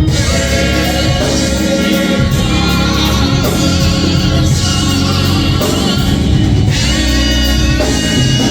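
Gospel choir singing with a live band, drums and bass.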